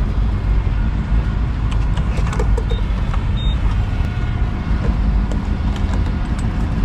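Steady low rumble of vehicles, with two short high beeps from a fuel pump's keypad about three seconds in, and light clicks as the E85 nozzle is handled.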